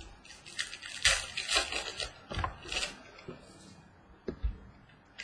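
Rustling, crinkling and scraping of trading card packs and cards being handled, heaviest about one to three seconds in, with a few light clicks and taps.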